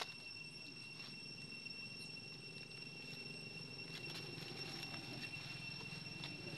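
Steady high-pitched drone of night insects, with faint clicks and rustles from about four seconds in as the monkeys shift on the stone.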